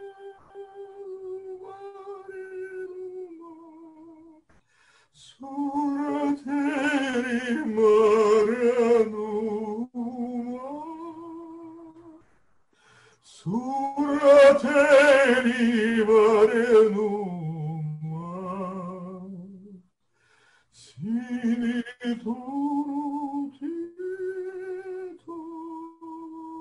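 A man singing a slow, prayer-like chant alone, with vibrato, in long phrases that swell loud in the middle and pause briefly for breath.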